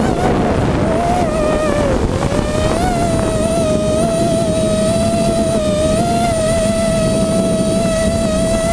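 Hexacopter's six Robbe 2216 brushless motors and propellers whining steadily as heard from the onboard GoPro, over a rough low rumble. The pitch wavers and dips about two seconds in, rises again about a second later, then holds steady.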